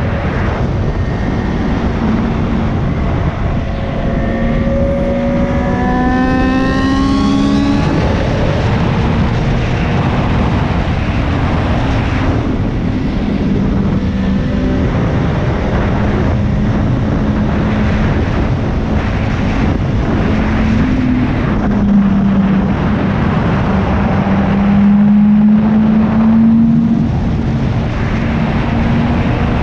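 Motorcycle engine running at highway speed under heavy wind rush. About four seconds in the revs climb for several seconds and then drop sharply as it shifts up. It then holds a steady drone, rising a little again near the end.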